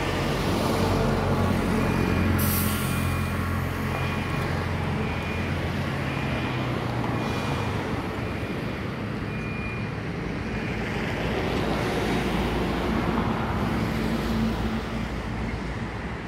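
Road traffic with a heavy vehicle's engine running nearby, a short hiss about two and a half seconds in, and a high beep repeating for several seconds.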